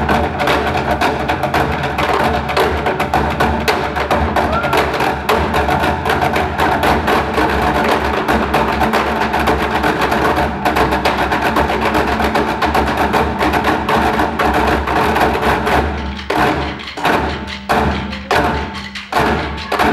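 A group of drummers beating sticks on the tops of plastic barrels in a fast, dense rhythm. About sixteen seconds in, the playing thins into separate, spaced-out strikes played together.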